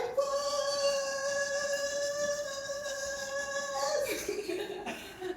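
A woman's voice holding one long, steady high note for about four seconds, then fading: an excited, celebratory cry.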